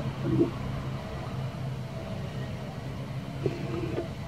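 A motor running steadily with a low hum, and a few brief faint sounds over it near the start and near the end.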